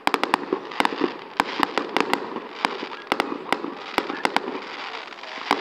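Aerial fireworks bursting overhead: a rapid, irregular string of sharp bangs and cracks, several a second.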